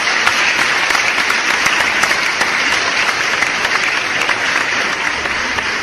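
Crowd applauding, a steady dense clapping that eases off slightly toward the end.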